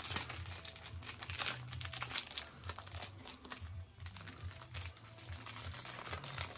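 Paper wrapping crinkling and rustling in quick, irregular crackles as a small item is unwrapped by hand.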